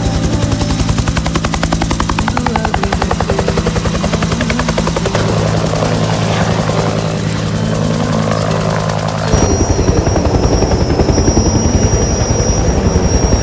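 Vehicle engine sound effects with a rapid, steady chopping pulse over a low hum, switching abruptly to a different pulsing engine sound about nine seconds in.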